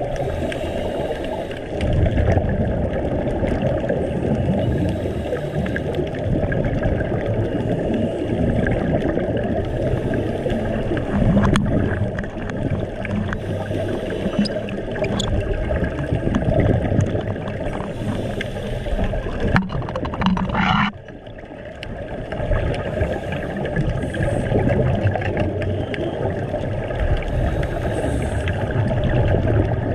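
Underwater sound on a scuba dive: a steady rushing rumble with gurgling from a diver's exhaled bubbles. A short, sharper burst of bubbles comes about two-thirds of the way through, and the sound briefly drops after it.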